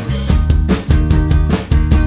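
Background rock music with drums and guitar over a steady, driving beat.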